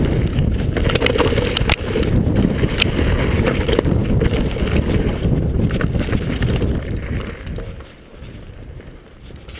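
Mountain bike ridden fast downhill on a dirt forest trail: a loud rumble of wind on the microphone and tyres on the ground, with repeated knocks and rattles of the bike over bumps. The noise drops away sharply near the end.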